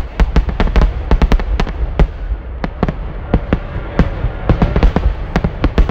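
Aerial fireworks bursting overhead: a fast, irregular string of sharp bangs and crackles, several a second, over a low rumble.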